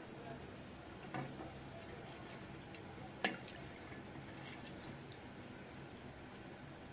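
Wooden spoon stirring milk in a metal pot: faint liquid swishing with two light knocks of the spoon against the pot, the sharper one about three seconds in.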